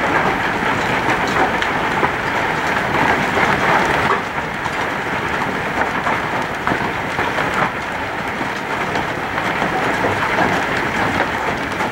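Large hailstones, about an inch across, falling steadily on grass and a stone path: a dense, even hiss made of countless small impacts.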